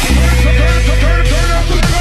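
Electronic background music with a heavy sustained bass and a repeating rising synth figure.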